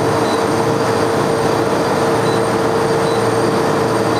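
Twin-bowl ice slush machine running just after being switched on: a steady mechanical whirr with one constant mid-pitched hum from its auger motor and refrigeration compressor.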